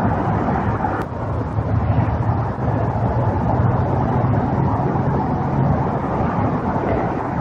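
Loud steady rumble and hiss with a low hum, played back as an EVP recording in which the investigators hear the words "I did"; a single sharp click about a second in.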